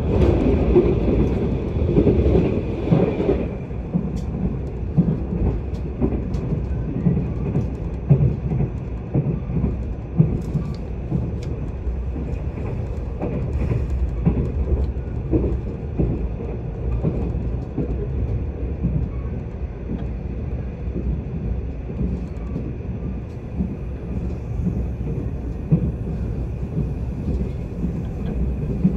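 Mugunghwa-ho passenger train heard from inside a coach, running at speed: a steady low rumble of wheels on rails with scattered short knocks. In the first three seconds or so a train passes close by on the adjacent track, a louder rushing that cuts off suddenly.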